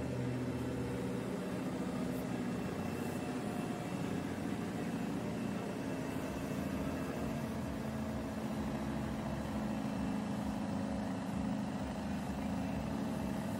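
Scania 142H truck's V8 diesel engine running steadily at full load as it drags a weight-transfer pulling sled.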